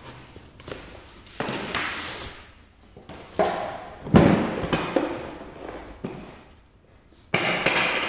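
Cardboard sleeve sliding and scraping off a hard plastic tool carry case, then the case knocking down onto the hard floor about four seconds in. Another scrape and rustle of cardboard on plastic comes near the end.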